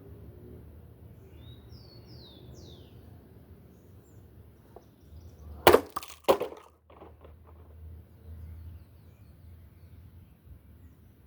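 Electric fan dropped from a height hitting the ground: two loud crashes about half a second apart, then a few smaller clatters as parts break off.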